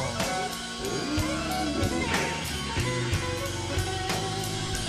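A live band playing slow blues: electric guitar lines between the sung phrases, over a steady drum beat and bass.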